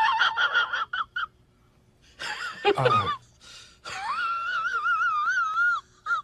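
High-pitched squealing vocal sounds: a quick run of short squeaks in the first second, a brief falling cry around the middle, then one long wavering squeal from about four seconds in.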